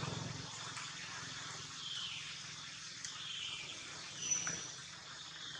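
Outdoor background hiss with a few short high chirping calls, two falling chirps and a brief thin whistle, the whistle the loudest. A low hum ends in the first half second.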